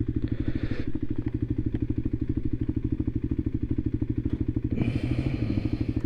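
Single-cylinder engine of a Voge 300 Rally motorcycle idling steadily with an even, quick low pulse. There are two brief hissy rustles, about half a second in and near the five-second mark.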